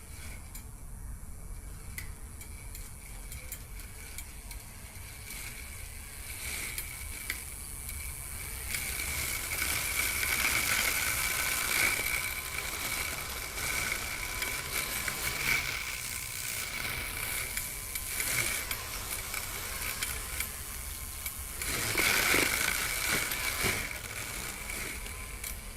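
Homemade remote-control lawn mower running: an RC crawler chassis with a 775 motor, salvaged from a cordless drill, spinning box-cutter blades. Its motors and gears give a steady high whine, with louder stretches about ten seconds in and again near the end.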